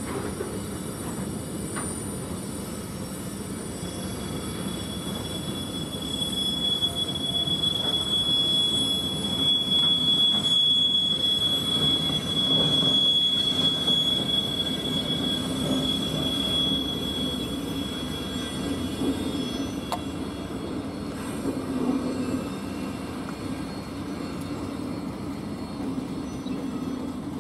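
Long freight train rolling around a tight curve: a single high, steady wheel squeal from the wagons' wheels sounds from about four seconds in until just past the middle, over the low rumble of the train. The rumble grows louder in the middle as the diesel locomotive passes close by, then eases off.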